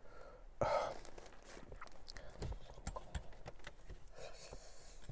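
Faint, irregular small clicks and soft rustles, with a short louder click-like sound about half a second in.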